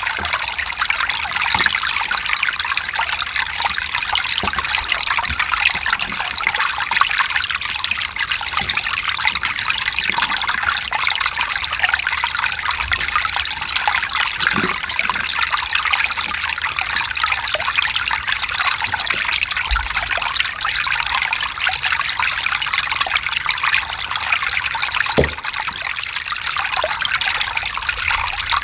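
Mountain stream running over rocks: a steady, bright trickling and babbling of water, with a few faint low plops.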